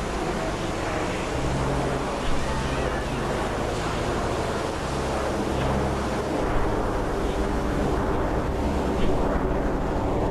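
Steady rushing noise of wind buffeting the microphone, with a few brief small thumps.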